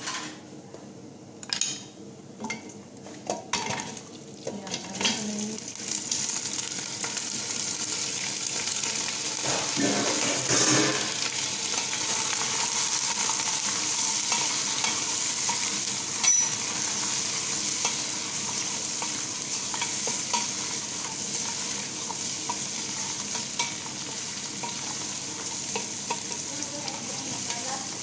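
Meat frying in sautéed onions in a stainless steel pot, stirred with a spatula: a few knocks in the first seconds, then a steady sizzle from about six seconds in as the meat goes in and is turned over.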